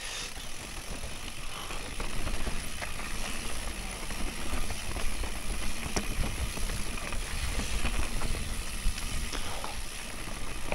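Mondraker Raze mountain bike riding fast down a dirt trail: steady tyre and rolling rumble, with the frame and drivetrain rattling and knocking over bumps.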